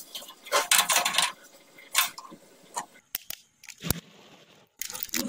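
Handling noise from hands working on an instant gas water heater's fittings: a brief scraping rustle about a second in, then a few scattered clicks and light knocks.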